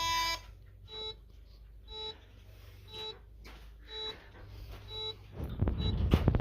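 Bosch GV4 security system keypad giving a longer tone as the passcode is accepted, then beeping once a second, the exit-delay countdown after arming in away mode. Near the end a loud, rough noise of movement and handling covers the beeps.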